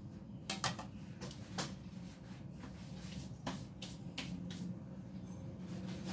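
Scattered light clicks and knocks of kitchen tools being handled, including a metal offset spatula set down against a stainless mixing bowl, over a low steady hum.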